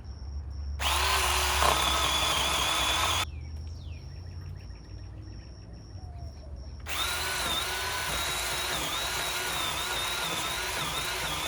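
Electric power saw cutting into a tree limb in two runs: a short run of about two and a half seconds, a pause, then a longer run of about five seconds. Its motor whine wavers as the blade loads up in the wood.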